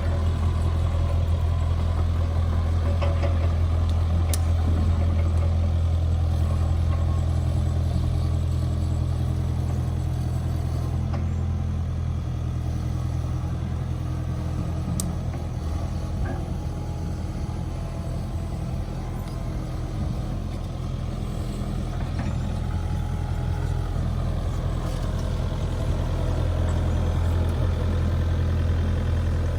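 Kubota mini excavator's diesel engine running steadily with a low, even hum, easing slightly for a while in the middle, with a couple of brief sharp clicks.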